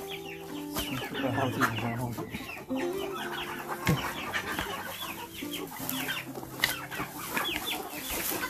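A flock of chickens clucking and chirping continuously, many short falling calls overlapping, with a single sharp knock about four seconds in.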